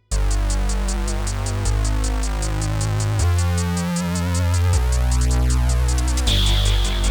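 Instrumental electronic soundtrack music starting abruptly: a drum-machine beat with fast, even hi-hat ticks over synthesizer and a bass line that moves between held notes. A high sustained synth tone joins about six seconds in.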